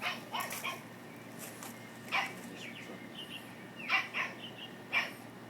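Sheltie puppy giving several short, sharp barks and yips at irregular intervals.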